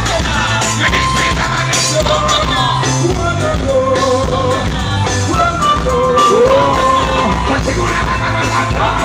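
Band music with a singer at a sound check: a steady, pulsing bass under a sung melody line that holds notes and slides between them.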